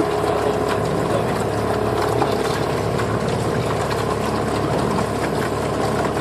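Swamp buggy's engine running steadily at low speed as it moves along a creek.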